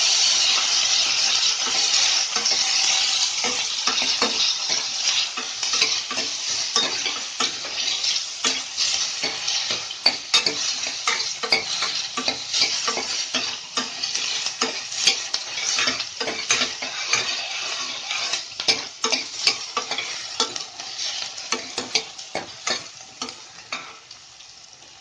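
Chopped tomato sizzling in hot oil in a kadai while a spatula stirs and scrapes against the pan with frequent clicks. The sizzle is loudest at first and dies down gradually.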